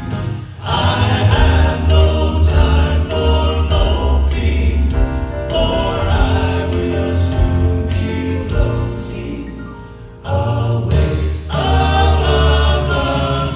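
Southern gospel male quartet singing in close four-part harmony, backed by a live band with a strong bass line. The music eases off for a moment about ten seconds in, then comes back full.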